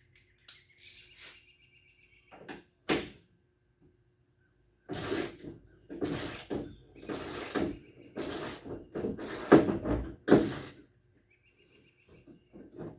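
Quarter-inch drive ratchet clicking as it is swung back and forth on a bolt in a truck door, in six strokes about a second apart, with a few small clicks and a short squeak before them.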